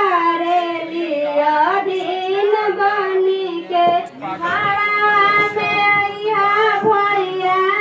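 High-pitched voices singing a song in long, held notes, with a brief break about four seconds in before the singing resumes.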